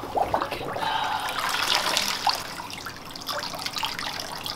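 Water sloshing and splashing in a plastic hydro-dipping tub as a painted scooter deck is moved through it and lifted out, water running off the deck back into the tub. The splashing is busiest in the first couple of seconds.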